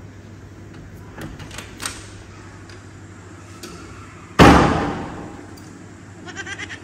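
Door banged once: a single loud bang about four and a half seconds in that rings out for about a second, with a few light knocks and taps before it.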